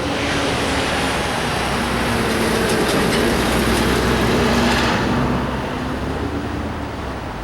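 Union Pacific freight train rolling past, wheels running on the rails with a steady low engine tone that drops in pitch about two seconds in. The loud rushing noise eases off about five seconds in.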